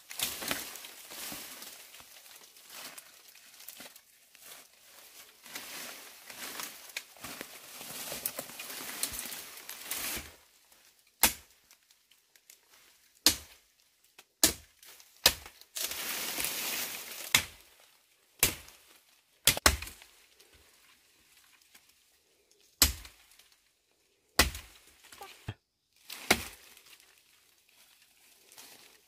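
Rustling and crackling handling noise for about ten seconds, then a series of sharp, separate knocks a second or two apart, like chopping or striking.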